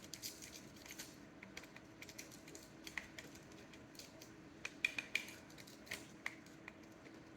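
Small plastic clicks from the gear face of a fidget cube being rolled with a finger, irregular, with a quick run of sharper clicks about five seconds in. A faint steady hum lies underneath.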